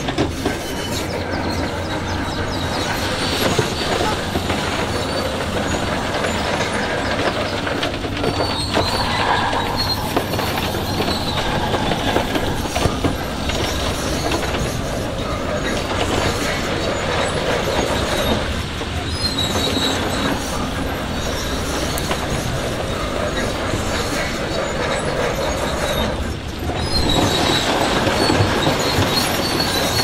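Shantui DH17C2 crawler bulldozer working, its diesel engine running steadily under loud metallic clanking and recurring high squeals from its steel tracks.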